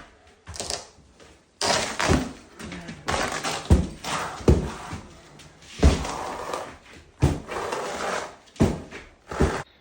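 Demolition work: a string of sharp knocks and heavy thuds, with longer noisy stretches between them, as building materials are pulled loose and dropped.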